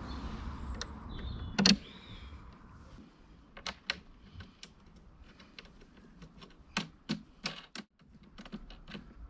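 Sharp clicks and knocks from handling the Flymo Speedi-Mo 360C lawnmower's handle: one loud knock about a second and a half in, then scattered clicks, with a quick run of four or five near the end. No motor is running.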